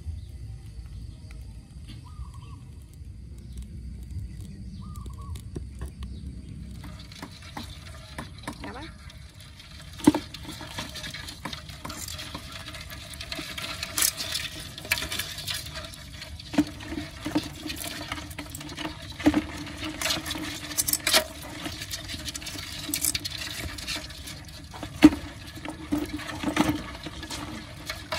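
A wooden stick stirring live small fish, eels and crabs in a bucket of shallow water: splashing and sloshing with sharp knocks, starting about seven seconds in. Before that, a low rumble with a few faint chirps.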